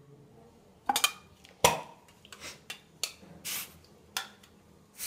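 Toiletries being handled, giving a string of sharp knocks and clicks, the loudest about a second and a half in. Two short hisses of an aerosol spray can, one about three and a half seconds in and another starting at the very end.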